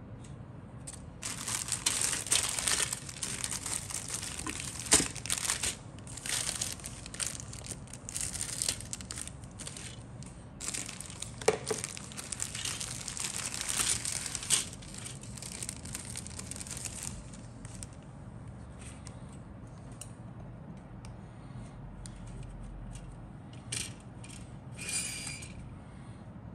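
Plastic packaging crinkling and rustling in the hands as plastic model kit parts are handled. It comes in dense bursts, with a sharp knock about five seconds in. In the last third it falls to a few light clicks.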